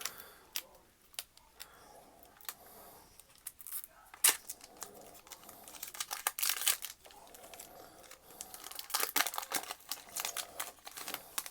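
Pokémon TCG booster pack foil wrappers crinkling and tearing in irregular bursts, with a sharp rip about four seconds in and busier crinkling in the second half.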